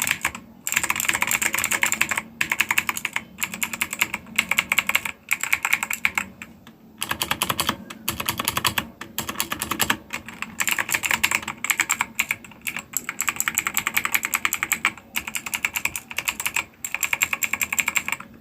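Fast typing on a Ziyoulang K68 mechanical keyboard with clicky blue switches: dense runs of sharp key clicks broken by brief pauses.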